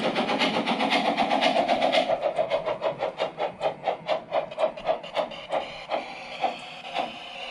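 LGB 20273 RhB model steam locomotive's sound module chuffing over the running noise of its drive. The chuffs are rapid and even at first, then slow and fade after about two seconds as the locomotive slows nearly to a stop.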